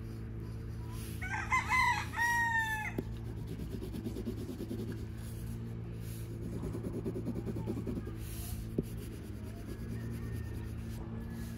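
A rooster crows once, about a second in, the call lasting under two seconds. Afterwards there is soft pencil hatching on paper, all over a steady low hum.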